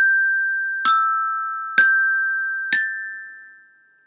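Metal resonator bells struck with a mallet, four notes about a second apart, a short ringing tune on the bells marked E, G and A: G, E, G, then A. Each note rings on over the next and fades out after the last strike.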